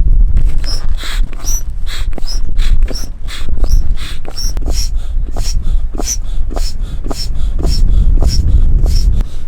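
Strong wind buffeting the microphone, with a steady rhythm of short sounds about two to three a second over it.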